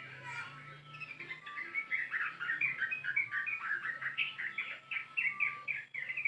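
Yellow-vented bulbul (trucukan) singing a long, rapid run of chattering notes, louder and denser from about a second and a half in: the long ropel song used as a lure (pancingan) to set other birds singing.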